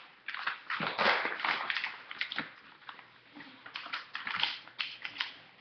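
Paper rustling and crinkling in irregular bursts as a sheet is handled and worked by hand.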